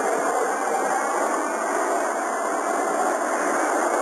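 Boeing 727's Pratt & Whitney JT8D turbofans at takeoff power as the jet rolls down the runway away from the listener: a steady jet noise with no distinct tones.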